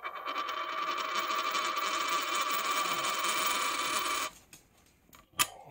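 A Canadian nickel spinning down on a wooden tabletop: a fast, steady whirring rattle that stops abruptly about four seconds in as the coin settles flat. A single sharp click near the end.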